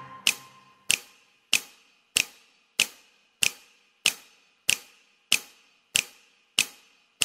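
A steady series of sharp ticks, about one and a half a second, a dozen in all.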